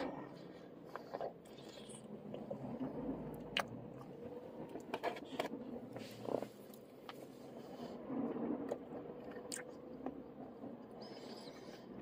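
A man biting into and chewing a slice of pizza close to the microphone, with small sharp clicks and crunches scattered through.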